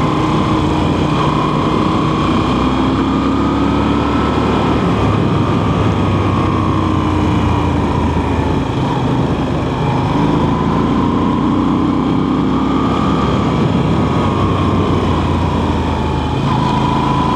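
Motorcycle engine running under way, its pitch rising and falling slowly several times as the throttle is worked through the bends, over a steady rush of noise.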